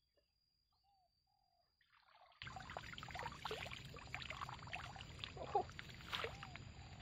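Water splashing and pouring out of a mesh fish trap as it is lifted from a shallow marsh pool, starting suddenly a little over two seconds in, with crackly splashes and plinking drops.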